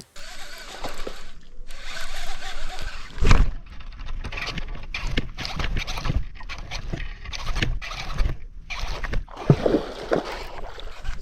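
Small fishing boat on the water: irregular knocks and scrapes over water sounds, with one louder knock about three seconds in.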